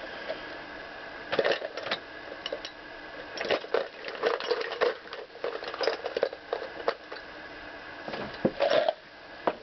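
Irregular clicks, knocks and short scrapes of metal tools and parts being handled on a wooden workbench, with several louder knocks about a second and a half in and again near the end.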